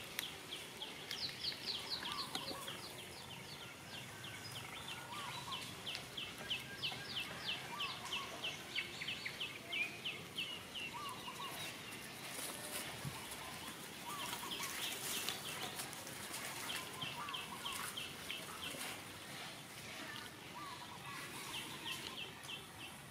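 Birds calling: fast runs of short, high, falling chirps, several seconds at a time, with a lower short call every couple of seconds.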